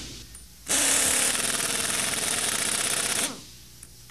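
Pneumatic impact wrench running for about two and a half seconds, driving a bolt down into the brake housing.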